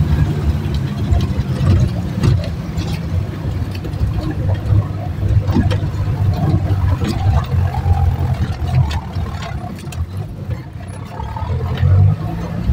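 Jeep engine running steadily under load, heard from inside the cab, with scattered knocks and rattles as the jeep bumps over a rocky, unpaved road. The engine note dips briefly about ten seconds in, then picks up again.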